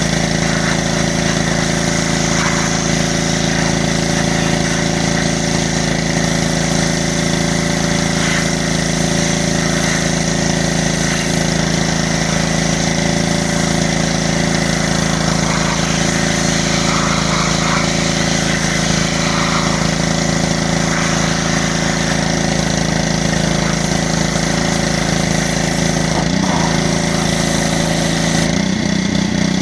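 Pressure washer running steadily with a constant low hum and the hiss of its spray; the note changes about a second before the end.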